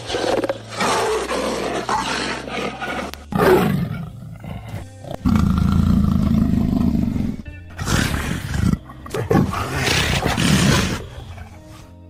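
Leopard growling and roaring in a string of rough calls of uneven length, one long held call in the middle, with music playing underneath.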